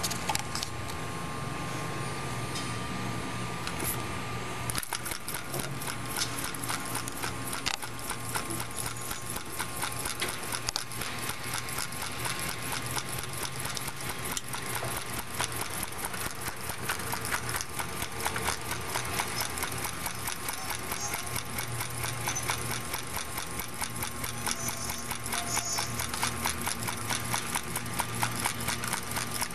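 Homemade diaphragm Stirling engine running, its wire crank and linkage clicking in a rapid, even rhythm that sets in about five seconds in.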